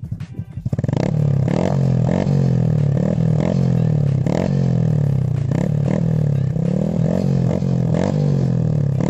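Honda Nice 125 engine through an open Apido Powerpipe exhaust, idling and then revved over and over from about a second in, the pitch climbing and falling with each blip. The owner puts its tone down to exhaust packing fiber that has not been replaced in a long time.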